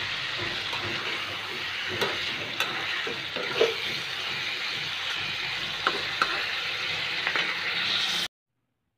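Chicken pieces sizzling in hot oil in a wok, stirred with a spatula that scrapes and knocks against the pan now and then. The sizzle cuts off abruptly near the end.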